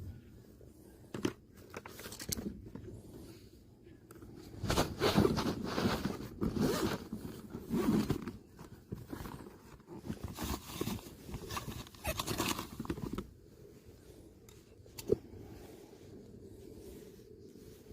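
Rummaging through gear while looking for scissors: zip-like scraping and rustling comes in irregular bursts for several seconds, then a single sharp click near the end.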